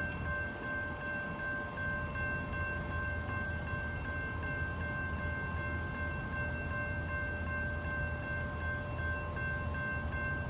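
Railroad grade-crossing warning bell ringing steadily with a quick repeating ding, over a low rumble: the crossing is activated for an approaching train.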